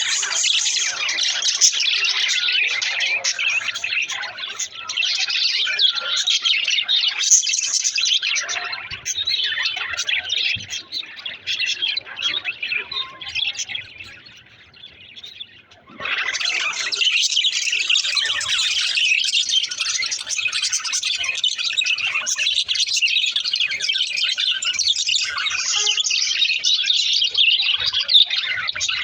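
Several pet budgerigars chirping and chattering in a dense, rapid stream. They drop away for a couple of seconds about halfway through, then start again.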